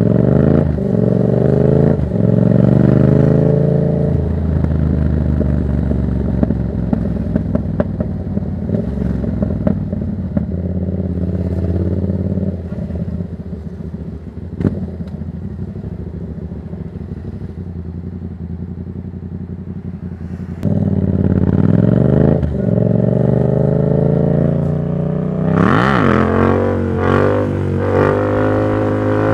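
Yamaha MT-07's parallel-twin engine through a Black Widow exhaust with no dB killer, heard from the rider's seat. It accelerates through the gears, then backs off with crackling on the overrun and settles into a quieter low-rev stretch. About twenty seconds in it pulls away hard again, with a quick rev rise and drop near the end.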